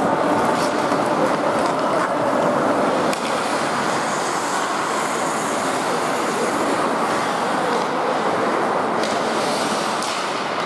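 Ice hockey being played: ice skates scraping on the rink's ice over a steady hall noise, with a few sharp clacks of hockey sticks and puck.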